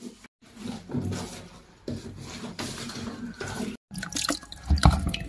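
Dark liquid marinade pouring and dripping onto a gutted fish in a plastic basin, with wet squelching as gloved hands handle the fish. The loudest splashes and clatter come near the end.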